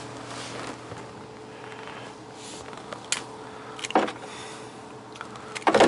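A few short knocks and clicks from handling a skinned squirrel carcass over a plastic tub, the last two near the end, over a steady background hum.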